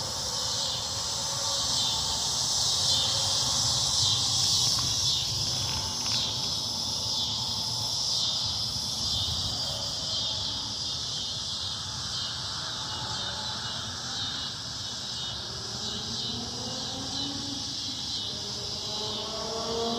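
A chorus of cicadas buzzing steadily in a high, dense drone. A fainter tone rising in pitch comes in near the end.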